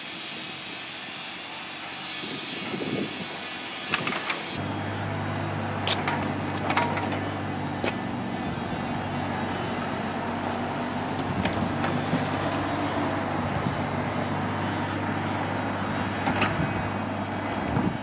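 A mini excavator digging beside a dump truck: a diesel engine runs steadily, with scattered sharp knocks and clanks from the digging. A few seconds in, the sound shifts to a deeper, steadier engine note.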